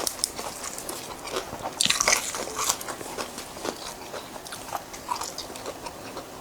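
Close-up eating sounds: crunchy food being bitten into and chewed, in irregular crisp crunches, the loudest bite about two seconds in.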